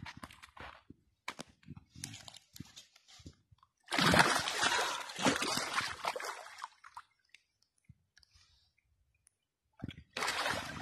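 A hooked northern pike thrashing and splashing in shallow water at the shore, loudest for about three seconds starting some four seconds in, after a run of lighter, scattered splashes.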